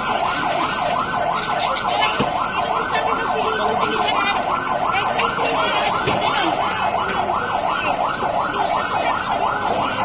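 Electronic siren sounding a fast, even yelp, its pitch sweeping up and down about three times a second without a break: the alarm sounding for an earthquake drill.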